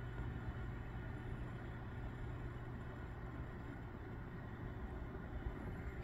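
Steady low rumble with a constant low hum, like a running engine; no bird calls stand out.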